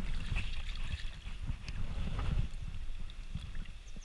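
Low, uneven rumble and rustling from fleece fabric rubbing and buffeting against the action camera's microphone, with a faint hiss of stream water and a few small clicks.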